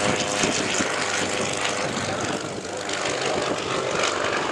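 Engines of two single-engine propeller aerobatic planes flying overhead in formation, a steady engine sound that eases slightly about halfway through.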